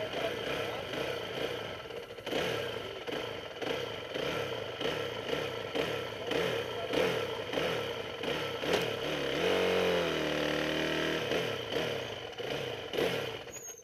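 Onboard racing engine running at low speed, pitch rising and falling about twice a second with a clattery, rattling mechanical noise. A longer rev dips and climbs again about ten seconds in, and the engine sound stops suddenly at the very end.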